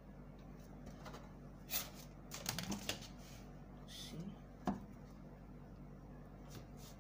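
Paper and drafting tools being handled on a table: a few rustles and sharp clicks, bunched together about two and a half seconds in, with one sharp click near the five-second mark.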